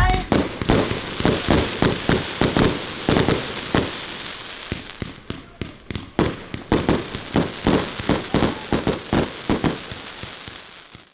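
Fireworks display: a rapid run of bangs from aerial fireworks, about three a second, over a steady hiss, fading out near the end.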